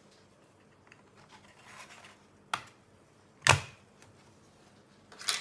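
Retaining clips of a laptop's aluminium bottom panel snapping loose as a plastic pry tool works along the edge. There are three sharp snaps, the second and loudest near the middle with a dull knock, and a light scrape of the tool before the first.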